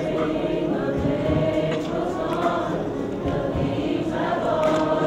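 A choir of many voices singing together, holding long notes.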